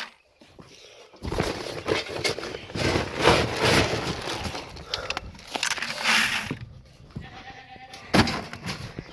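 A scoop digging into a sack of feed pellets, with the pellets and the bag rustling and rattling for several seconds. A goat bleats faintly near the end.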